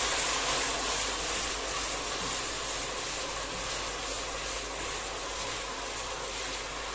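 Steady sizzling of pepper frying in hot oil with browned onions, a little louder at first and easing slightly.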